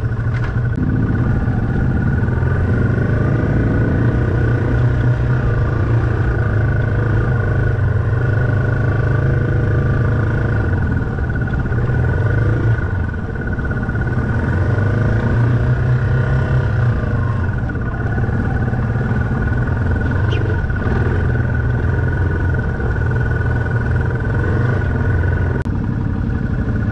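Dual-sport motorcycle engine running at low trail speed, steady and close, with a thin steady whine above it and a brief dip in level about 13 seconds in.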